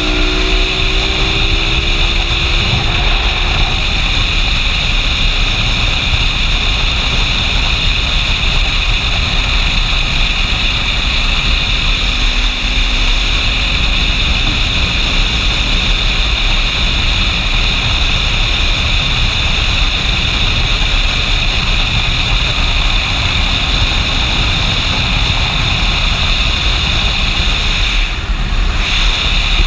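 Wind rushing over a motorcycle-mounted camera at road speed, a steady loud rumble and hiss, with the motorcycle's engine note heard in the first few seconds before the wind covers it.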